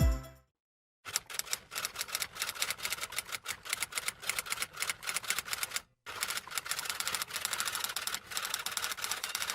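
Typewriter keys being struck in a rapid stream of clacks, in two runs with a brief pause between them.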